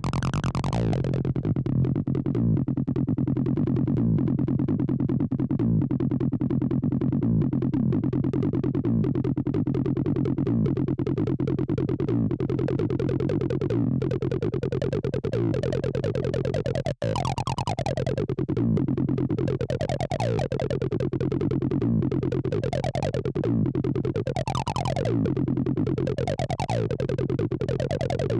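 Acid-style electronic music: a synthesizer bassline of fast repeated notes whose resonant filter sweeps open and closed again and again, most plainly in the second half. It cuts out for a split second a little past halfway.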